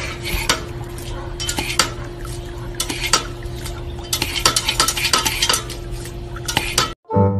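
A dog at a step-on pedal water fountain: water spraying and splashing, with irregular clicks and clatter from the plastic pedal and the dog's lapping, over a steady low hum. It cuts off about seven seconds in as music begins.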